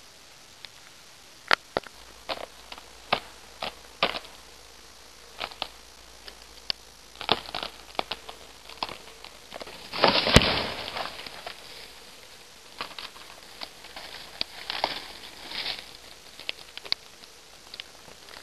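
Footsteps crunching over leaf litter and twigs on the forest floor, a scatter of separate crackles and crunches. About ten seconds in there is a louder burst of rustling with a sharp snap, like a twig breaking or brush being pushed aside.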